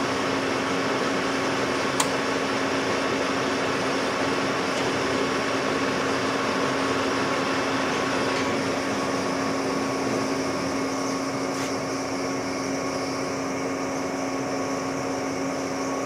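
Metal lathe running with a steady hum and hiss, with a single sharp click about two seconds in; the hiss thins a little about eight seconds in.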